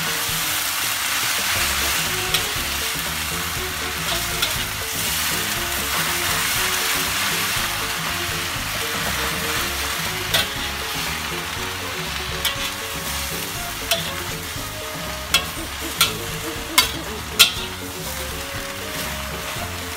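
Water spinach sizzling in a hot wok as it is stir-fried and tossed. A metal spatula clinks against the wok now and then, most often in the second half.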